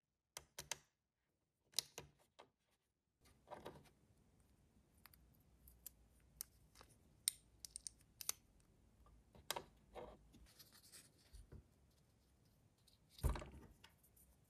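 Tiny Re-ment miniature props being handled: scattered light clicks and taps of small plastic pieces, with a louder rustle of a small paper packet near the end.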